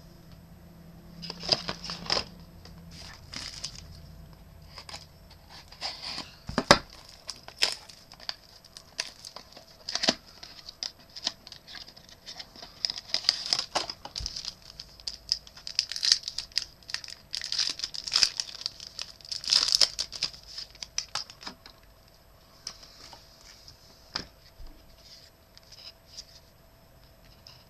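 Trading-card pack wrapper being torn open and crinkled, in irregular crackling bursts with a sharp snap about seven seconds in. The crinkling gives way to quieter handling of the cards in the last few seconds.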